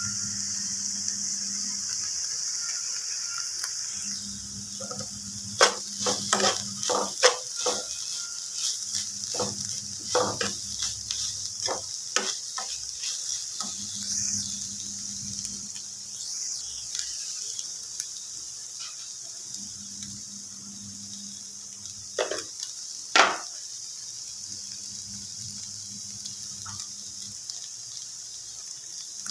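Chopped onions and crumbled paneer sizzling in a steel frying pan with a steady hiss, while a spoon stirs and clinks against the pan in a quick run of knocks about five to thirteen seconds in and twice more later on.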